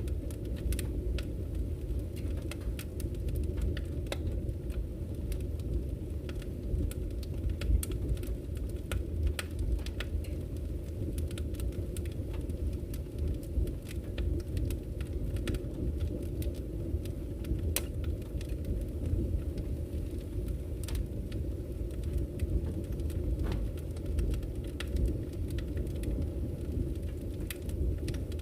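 Wood fire burning in a fireplace: a steady low rumble of the flames with frequent scattered sharp crackles and pops from the burning logs.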